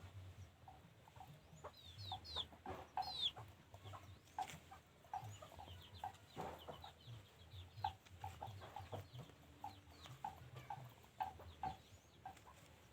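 Chickens clucking: short notes repeated irregularly throughout, with a few high, falling peeps about two to three seconds in.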